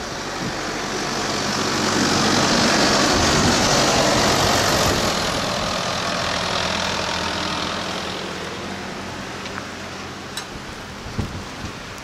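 Small sidewalk snow plow tractor passing close by, its engine running steadily while the blade pushes snow. The noise swells to its loudest a few seconds in, then fades as the plow moves away.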